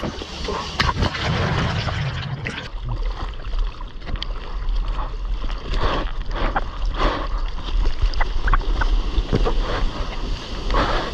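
Seawater sloshing and splashing against an action camera held at the surface of the sea, with many short splashes and a low rumble of wind on the microphone.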